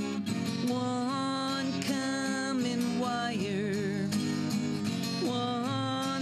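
A slow folk-rock song with strummed acoustic guitar.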